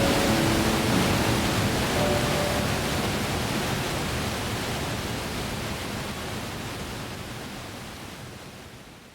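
Steady rush of running water, fading out gradually, with a few soft held music notes in the first couple of seconds.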